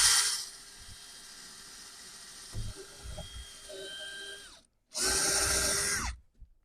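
Electric drill boring a hole in the wooden shed door: a loud full-speed run at the start drops to a quieter steady run for about four seconds, then after a brief stop a second loud burst of about a second winds down.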